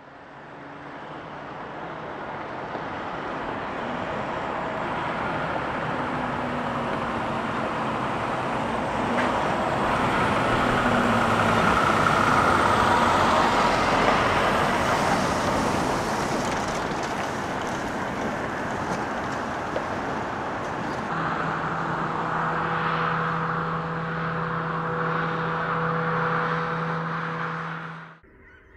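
Road traffic passing: steady tyre and engine noise that fades in, swells as a semi-truck goes by around the middle, then a steady engine hum before it cuts off suddenly near the end.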